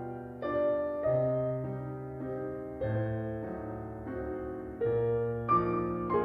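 Piano music: slow, sustained notes and chords, a new one struck every half second to a second.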